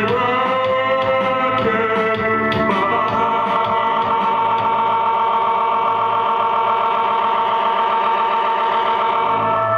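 Live electronic keyboard music: sustained organ-like chords that sweep up in pitch in the first second, change about three seconds in, then hold as a steady, wavering drone.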